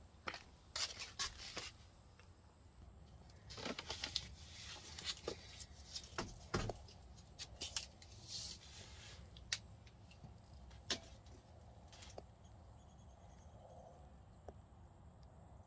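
Faint scattered clicks, taps and brief rubs of hands working a tape measure and handling rigid foam insulation board at a trailer window, a few small sounds a second at most with a low steady hum beneath.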